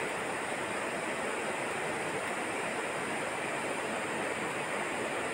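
A steady, even rushing hiss with no separate events.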